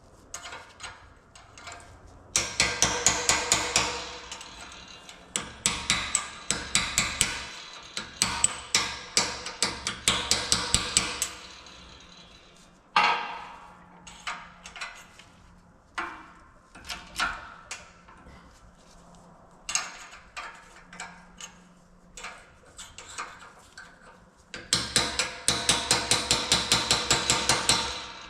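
Rapid hammer strikes on steel parts of a Unimog 416 CV joint, coming in runs of several quick blows, about five a second, with pauses between and a metallic ring. The hammering drives a stubborn part into place.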